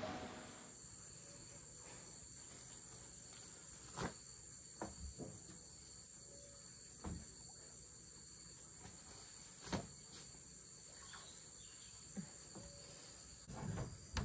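Steady, high-pitched drone of an insect chorus, such as crickets, from the rainforest. A few short knocks and bumps sound through it, more of them near the end.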